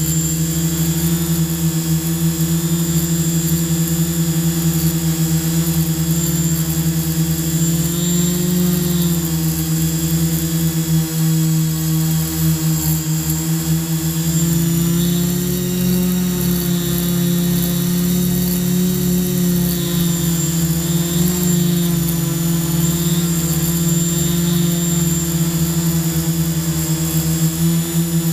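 Quadcopter drone's electric motors and propellers buzzing steadily in flight, the pitch rising and falling slightly now and then as the throttle changes.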